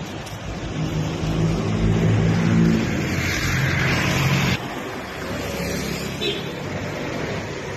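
A motor vehicle's engine running close by, growing louder for about four and a half seconds and then cutting off sharply. A lower, steady engine and traffic sound follows.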